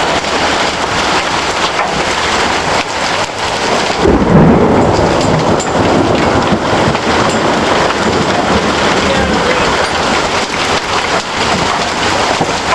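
Heavy hail and rain pounding down in a hailstorm: a loud, dense, steady clatter and hiss. About four seconds in comes a loud low rumble.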